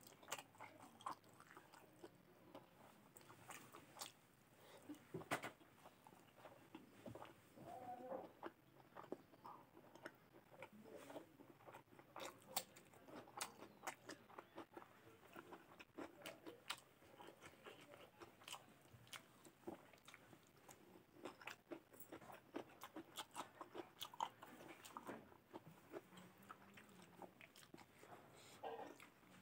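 Close-miked chewing of mutton curry and rice eaten by hand, with many short mouth clicks throughout.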